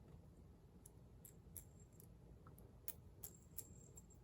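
Faint, scattered clicks of a metal wing nut being fitted over a bolt head, about six small contacts, two of them followed by a brief high ring.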